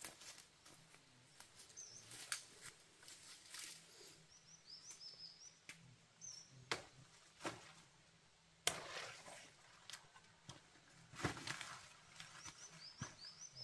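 Scattered light knocks, snaps and rustles of things being handled, with faint bird chirps twice, in short quick runs.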